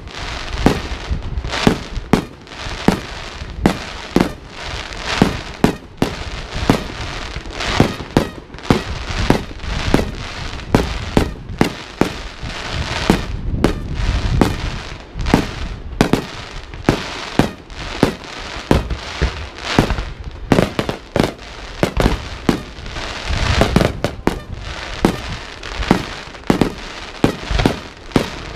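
Aerial fireworks shells bursting in a rapid, uneven string of sharp bangs, about two or three a second, over a constant low rumble of booms.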